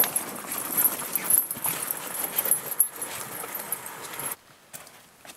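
Snowblower with its engine off being wheeled out over gravelly dirt: crunching wheels and rattling, knocking metal, stopping abruptly about four seconds in.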